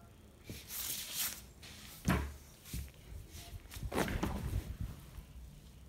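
A few dull knocks and rustles, the loudest thump about two seconds in and another cluster about four seconds in.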